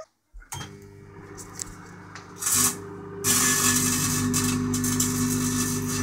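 Microwave oven switching on and running with a steady hum. About three seconds in, a loud crackling buzz of electrical arcing from bits of kitchen foil inside begins and keeps going.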